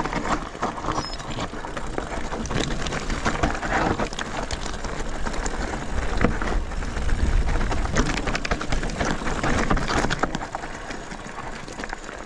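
Mountain bike riding down a rocky trail: tyres crunching over loose stones and the bike rattling with many small knocks, over a low rumble of wind on the microphone.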